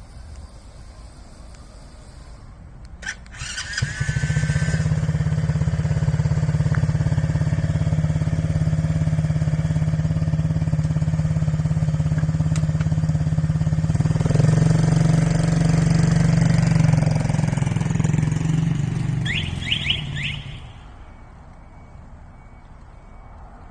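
Orion Sniper 120 quad bike engine started by its remote start. A click comes about three seconds in, then a short chirp as the engine catches. It idles steadily and grows a little louder partway through, then a quick run of four short beeps sounds and the engine shuts off about twenty seconds in.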